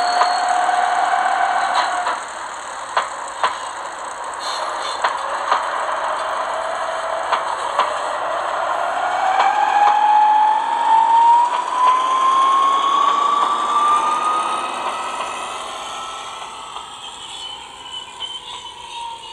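Gauge 1 model Köf II shunting locomotive pulling away with two wagons: its running sound climbs steadily in pitch as it picks up speed, with a string of sharp clicks from the wheels on the track early on, and fades as it leaves.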